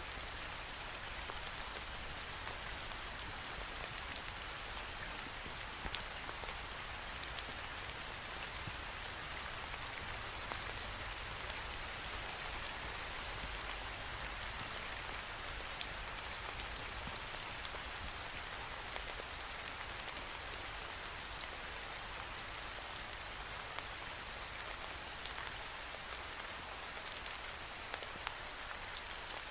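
Steady rain falling against a window pane: an even hiss with scattered sharp taps of single drops.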